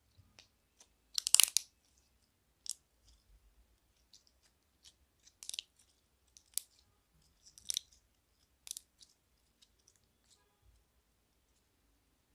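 Slime being pressed and squeezed by hand, giving short crackling, crunchy pops at irregular intervals. The loudest crackle comes about a second in.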